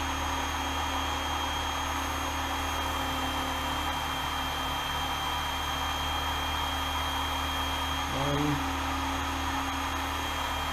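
Work Sharp Ken Onion Edition belt sharpener running steadily, its motor and extra-fine polishing belt giving an even hiss with a high whine.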